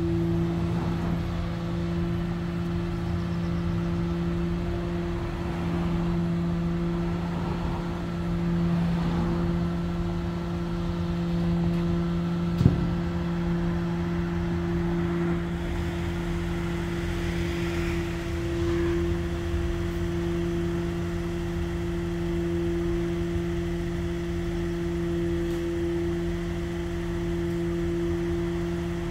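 Parked rear-loading garbage truck's engine running with a steady, unbroken hum. A single sharp knock a little before halfway through.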